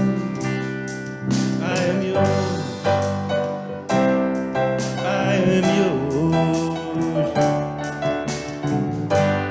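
Live contemporary worship band playing: electric guitar, electric bass, drum kit and electric keyboard, with a steady drum beat.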